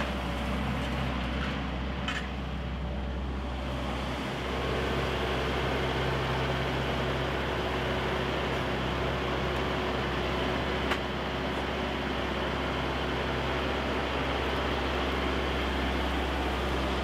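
LS compact tractor's diesel engine running steadily as it pulls up to the water tote on its front loader. The engine grows a little louder about four seconds in, with a faint steady whine joining it.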